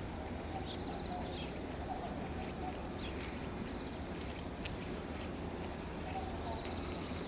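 Steady, high-pitched insect chorus over a low rumble, with a few faint chirps.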